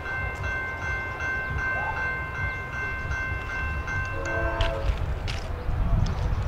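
Railroad crossing bell ringing at an even rhythm of about two strokes a second over a low rumble. The bell stops about four and a half seconds in.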